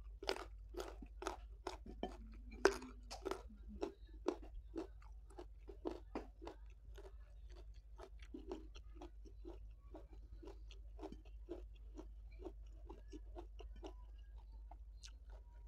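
Close-miked chewing of crunchy food, crisp mouth clicks and crunches about two or three a second, loudest in the first few seconds and softer after.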